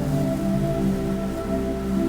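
Ambient synthesizer music: a looped drone of several sustained, overlapping tones held as a slowly shifting chord, with no beat.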